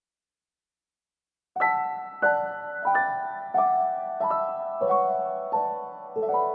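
Silence, then a slow piano tune starts about a second and a half in, one note or chord struck roughly every two-thirds of a second, each left to ring, the melody stepping gradually downward.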